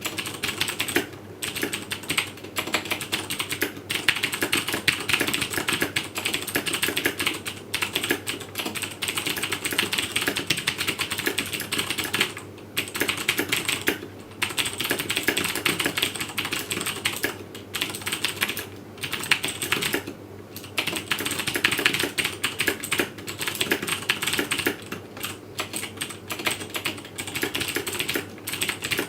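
Fast, continuous typing on a Razer BlackWidow Ultimate 2012 mechanical keyboard, whose keys use clicky Cherry MX Blue switches. It is a dense stream of loud key clicks, broken by a few short pauses.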